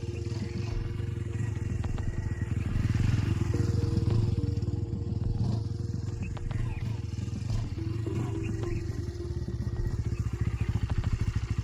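Bajaj Pulsar N150's single-cylinder engine running at low speed while the bike is ridden in a tight full-lock turn, with a steady pulsing exhaust note.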